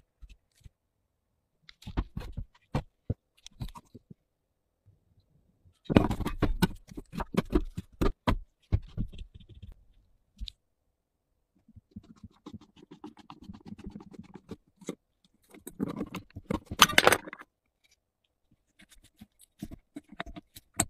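Rusty metal parts of an old flashlight being handled and worked by hand: scattered clicks, knocks and scraping, busiest in two spells, the first about six seconds in and the second from about twelve seconds.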